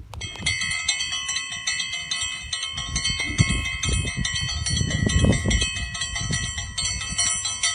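Strong wind gusting on the microphone with a low rumble, under a layer of many steady, bell-like chiming tones. The chiming starts just after the beginning and cuts off near the end.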